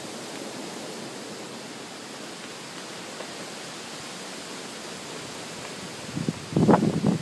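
Strong storm wind rushing steadily through trees, with a gust buffeting the microphone in a loud burst near the end.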